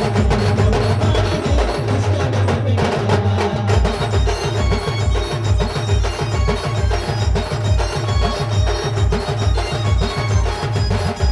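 Adivasi band music playing a fast timli/rodali dance tune: a heavy, driving bass-drum beat with short bell-like melody notes over it. The beat firms into a fast, even pulse about four seconds in.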